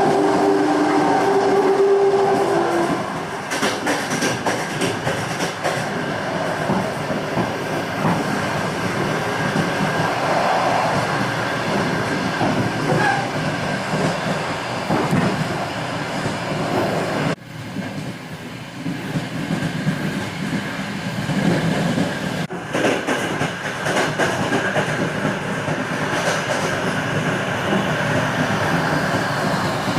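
A moving train's wheelsets knocking over rail joints in a running clickety-clack. A steady howling tone sounds over it for the first few seconds, and the sound dips suddenly and briefly a little past halfway.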